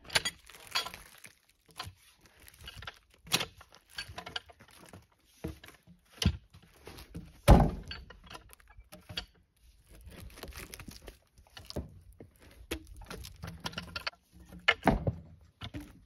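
Pine logs being rolled with a cant hook onto a sawmill's steel log bed: scattered, irregular wooden knocks and thuds of log against log and against the frame, with one heavy thud about halfway through.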